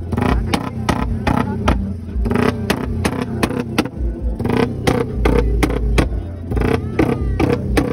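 Tuned motorcycle engine breathing through twin open velocity-stack intakes, running and revved in rapid short sharp bursts, with voices of people crowded around.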